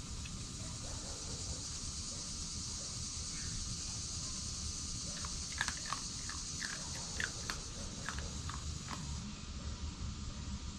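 Red fox chewing a mouthful of dry food, a run of short crunching clicks from about five seconds in that stops near the end. A steady high insect chorus runs underneath.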